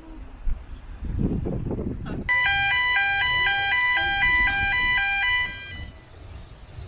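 Two-tone electronic warning alarm, switching sharply between a higher and a lower pitch about twice a second for about three and a half seconds, starting a couple of seconds in. Before it, wind rumbles on the microphone.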